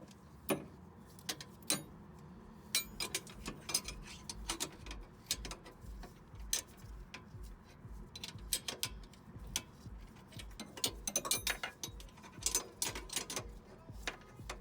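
Hand ratchet clicking in irregular runs while a 19 mm bolt on the rear suspension is turned and tightened.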